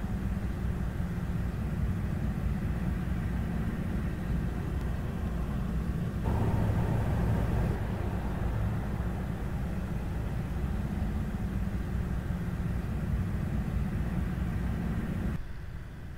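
Low, steady rumble of diesel locomotives running in a rail yard, swelling for a moment about six seconds in and falling quieter shortly before the end.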